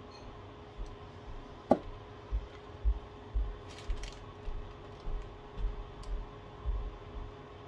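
One sharp click about two seconds in, then soft low knocks roughly twice a second over a steady hum, as a toothpick spreads UV resin over a resin keyring letter on a silicone work mat.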